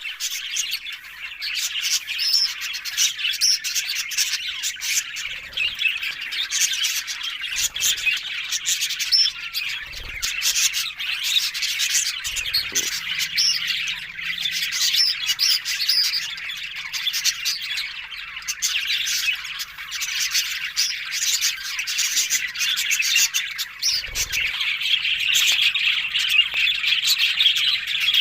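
Several budgerigars chattering and warbling without a break, a dense run of chirps and squawks. A few soft low thuds come through now and then.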